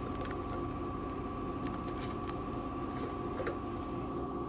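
Dollar bills rustling as they are pulled by hand from a bill changer's stacker box and dropped onto a pile, a few soft papery clicks over a steady mechanical hum.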